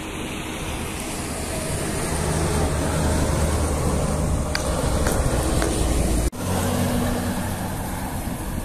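An intercity bus passing on a highway: its engine and tyre noise grow louder as it comes by. About six seconds in there is an abrupt cut to another bus, whose engine fades as it pulls away.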